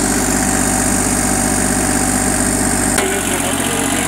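Kubota compact tractor's diesel engine running steadily, with one sharp click about three seconds in.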